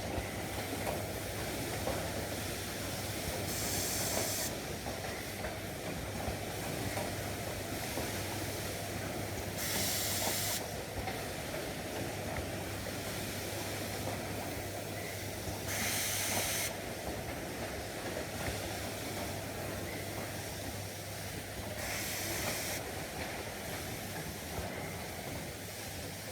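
Wire-cutting machine running steadily with a low hum, broken by a hiss about a second long roughly every six seconds, four times.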